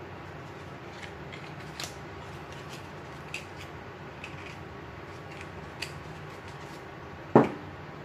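Steady hum of an electric fan, with a few light clicks and taps from handling packaging and bottles, and one sharp knock near the end.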